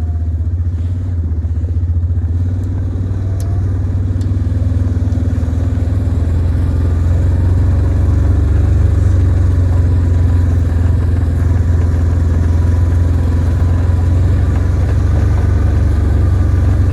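A vehicle engine running steadily, a continuous low drone.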